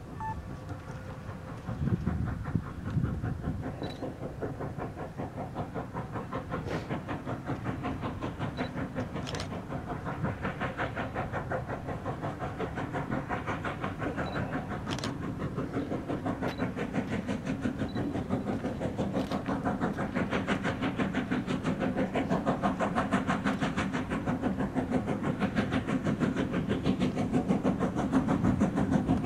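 Steam locomotive No. 90, a Baldwin 2-10-0, working a train with a steady run of even exhaust chuffs that grow louder as it approaches.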